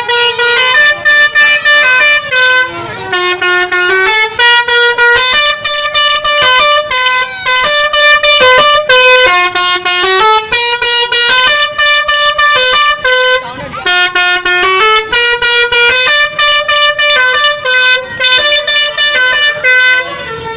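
Bus basuri horn, an electric multi-tone telolet horn, playing a tune loudly. Its held notes step up and down with short breaks between them, and there is a brief pause about 13 seconds in.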